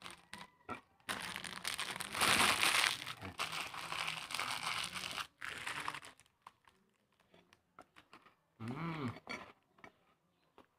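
Thin plastic biscuit wrapper crinkling and crumpling in the hands, loudest about two to three seconds in and stopping around six seconds, followed by a few faint clicks.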